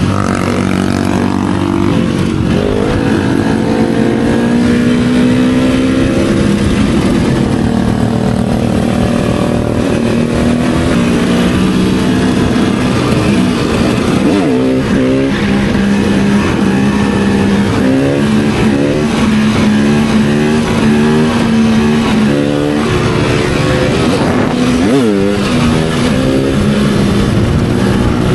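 Supermoto and dirt bike engines running under way, their pitch held steady for long stretches and then dropping and climbing quickly a few times as the throttle is rolled off and opened again.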